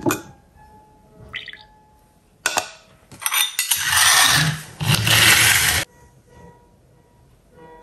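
Metal phin coffee filters clinking against glass and saucer as they are lifted off the glasses and set down: sharp clinks at the start and again after about two and a half seconds. They are followed by about two seconds of loud rough scraping noise.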